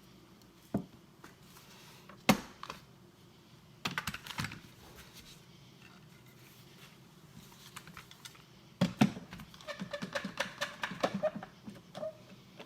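Scattered clicks and knocks of an axe and a steel file being handled on a table, with one louder knock about two seconds in and a run of quick light clicks with faint metallic ringing from about nine seconds in.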